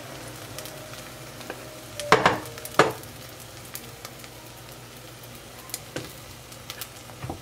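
Beaten egg sizzling in oil in a frying pan as the last of it is poured in and a wooden spatula pushes and rolls the omelette. Two loud sharp knocks come a little after two seconds in, then a few lighter taps near the end.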